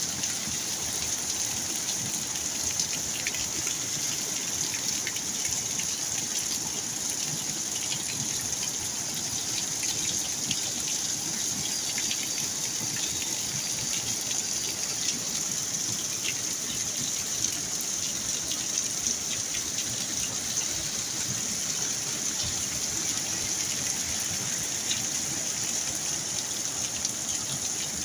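Steady heavy rain: an even hiss with many small scattered drop hits.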